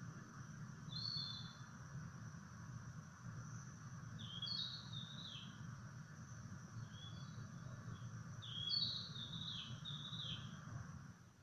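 Narcissus flycatcher (kibitaki) singing: short, varied warbled phrases, one about a second in, then groups of phrases around four seconds and eight to ten seconds in, over a steady low hiss and hum.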